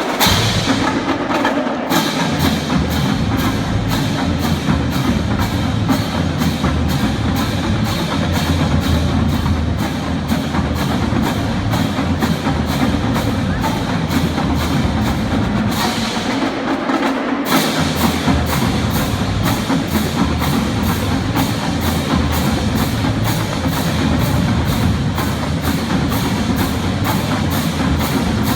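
High school marching band playing a loud percussion-driven piece: a steady, fast beat of sharp drum and stick strokes, about three a second, over a continuous low band sound. The sharp high strokes drop out for a second or so about two-thirds of the way through, then resume.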